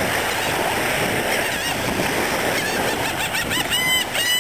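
Seagulls calling, a quick series of short cries starting about three seconds in, over the steady wash of small waves on the shore.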